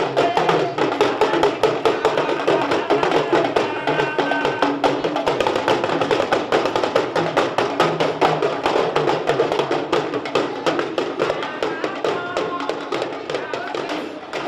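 Music driven by fast, dense hand percussion with wood-block-like strikes over a melody; it grows slightly quieter in the last few seconds, then cuts off abruptly at the end.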